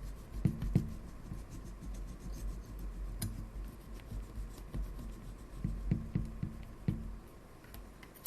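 Wooden skewer scraping and picking at old foam light-seal residue on a Pentax K1000 camera body: short scratchy scrapes with scattered light taps.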